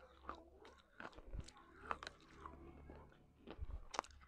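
Close-miked biting and chewing of broken clay pot pieces: a run of sharp, separate crunches and cracks, the loudest near the end.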